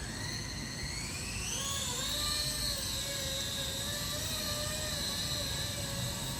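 A small RC helicopter's brushless electric motor and rotor head whining. The pitch rises about a second in as it spools up, then holds steady with slight wavers as the throttle is adjusted.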